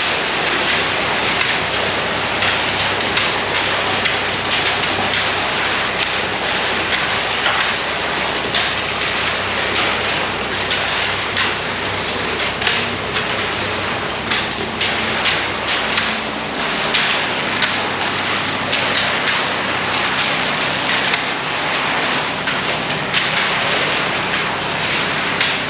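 Wet concrete pouring from a ready-mix truck's chute: a steady, gravelly rushing hiss full of small crackles, with the truck's engine running low underneath.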